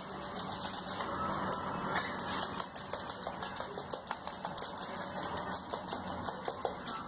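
Rapid, fairly even clicking and scuffling, several ticks a second: a parrot's claws and feet scrabbling on a hard floor as it shoves a plush toy along.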